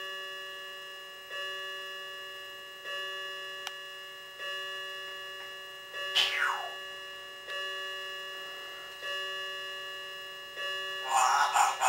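A ringing tick repeats about every second and a half, like a clock. An African grey parrot whistles one falling note about six seconds in, and near the end it makes a loud, harsh, pulsing call.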